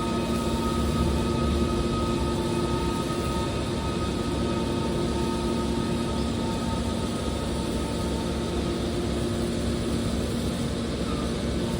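Drum baler press machine's hydraulic power unit running with a steady mechanical hum and whine that holds an even pitch throughout.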